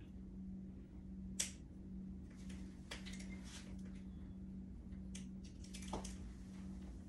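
Scattered light clicks and taps of small tools and parts being handled, a 3 mm Allen key among them, being set into a screw on the scooter stem; the sharpest click is about one and a half seconds in. A steady low hum runs underneath.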